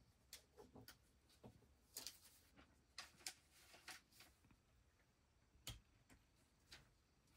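Near silence: room tone with a few faint, irregular clicks.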